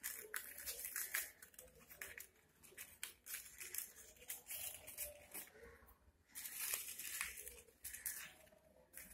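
Paper crinkling and rustling in the hands as a small paper strawberry is handled and green string is worked through it: faint, irregular scratchy crackles with a brief lull about six seconds in.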